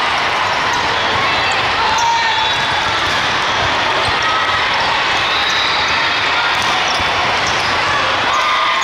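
Steady din of an indoor volleyball hall: volleyballs bouncing and being hit, sneakers squeaking on the court floor, and voices, with no single sound standing out.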